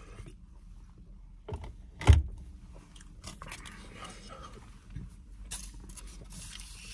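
Aluminium foil wrapper around a burrito crinkling and rustling as it is handled, densest near the end. A single loud thump about two seconds in, with a softer knock just before it.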